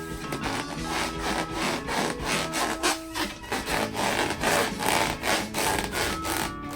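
Hands rubbing and squeezing rubber balloons in quick repeated strokes, about three a second.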